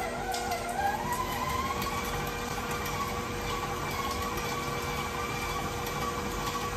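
Electric tilt-head stand mixer running with its paddle attachment, beating softened butter. The motor whine climbs in pitch over the first second or two as the mixer speeds up, then holds steady.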